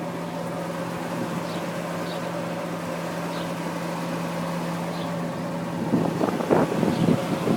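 Hess Einheit 1900 shoe repair machine running with a steady hum, joined near the end by several short, rough bursts of noise.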